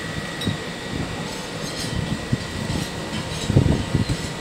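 Steady background hum of a small shop, with a thin high steady tone and irregular low knocks, loudest about three and a half seconds in.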